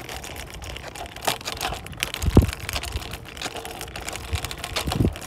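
Kick scooter rolling over rough asphalt, a steady crackly rattle from its wheels, with wind buffeting the phone's microphone in low thumps about two and a half and five seconds in.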